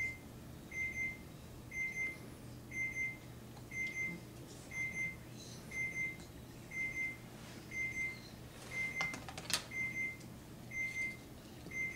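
An electronic beeper sounding a short, high, steady beep about once a second, over and over, with a sharp click about nine and a half seconds in.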